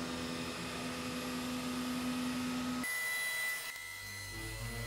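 Haas UMC750 CNC mill cutting dry with an eighth-inch end mill: a steady machining hum with a constant tone. About three seconds in, the machine sound cuts off abruptly, and music starts near the end.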